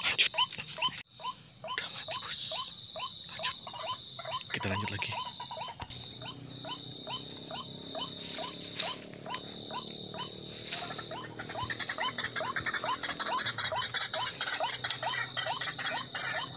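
Night animal chorus: short rising croaking calls, repeated steadily about two to three times a second, over a steady pulsing high-pitched insect trill.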